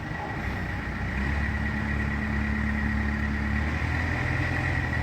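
Engine of heavy tree-removal equipment running, working harder from about a second in and easing off near the end, with a steady high whine over it.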